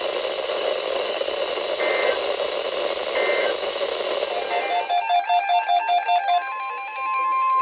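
NOAA Weather Radio receiver hissing with static, then a short pulsing burst of warbling digital data tones, the SAME header that opens an alert. Near the end the steady 1050 Hz weather radio warning alarm tone begins.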